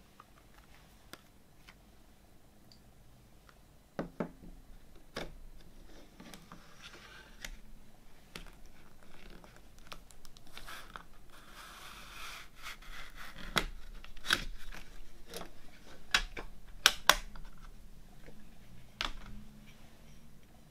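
Plastic CD jewel case being handled and opened, with a series of sharp clicks and snaps from the hinged lid and tray. A stretch of papery rustling about halfway through comes as the cover booklet is slid out of the lid's tabs.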